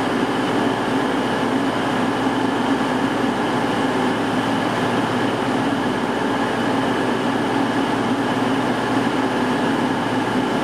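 Steady drone of a diesel train's engine, even in level throughout with no clicks or squeals.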